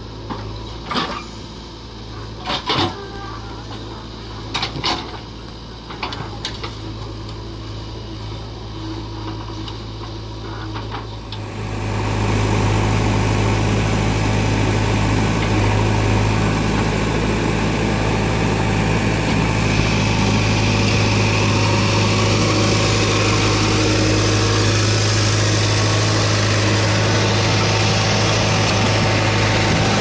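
JCB 3DX backhoe loader's diesel engine running steadily under load as it works its backhoe, with a few sharp knocks in the first few seconds as soil and clods land in a steel trolley. About eleven seconds in the engine becomes much louder and fuller, as if heard right beside the machine.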